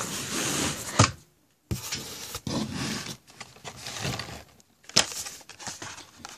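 Carded Hot Wheels cars being handled: plastic blister packs and cardboard backing rustling and crinkling, with a few sharp clacks.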